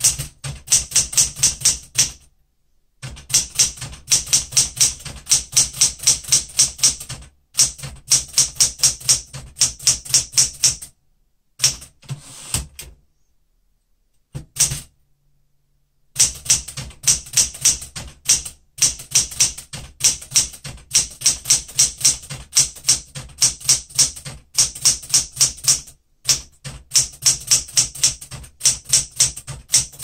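Smith-Corona Galaxie Deluxe manual typewriter being typed on: rapid keystrokes, about five or six a second, in runs of a few seconds broken by short pauses, with the longest pause, about three seconds, near the middle.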